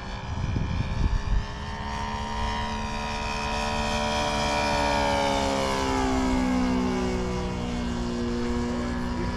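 Saito FG-33R3 three-cylinder four-stroke radial engine of an RC model plane in flight, droning as it passes. It is loudest about five seconds in, and its pitch drops as it goes by. Low rumbling bursts come in the first second and a half.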